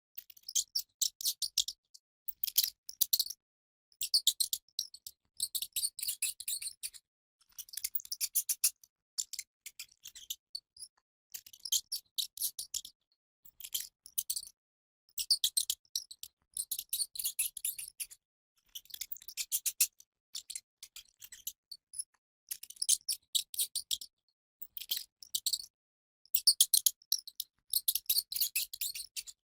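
Rat's rapid, high-pitched chittering squeaks, coming in bursts of a second or two with short silences between.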